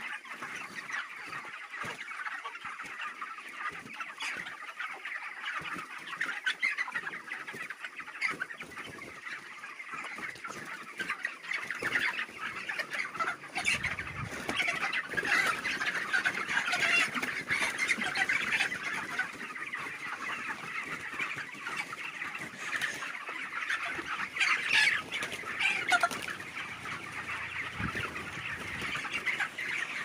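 A large flock of young white broiler chickens clucking, a dense continuous chatter of many overlapping calls, somewhat louder through the middle and around 25 seconds in.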